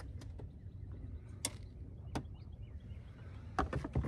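Light clicks and knocks from handling a fishing rod and a small crappie in a boat, with a cluster of louder knocks near the end, over a steady low background rumble.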